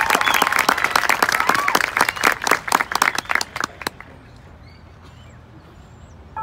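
Crowd applauding and cheering, many hands clapping with whoops and shouts. The applause dies away about four seconds in, leaving a quiet stretch with a few faint high chirps.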